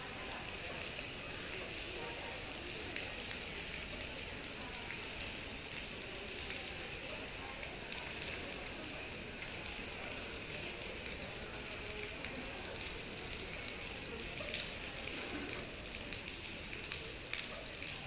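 Rainwater leaking through the terminal roof and splattering onto the seats and flooded stone floor: a steady hiss of many small splashes and drips.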